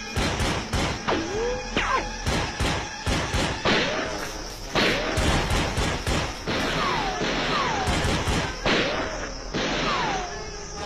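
Rifle gunfire: irregular single shots and quick strings of shots, with short whining tones that swoop and fall in pitch between them.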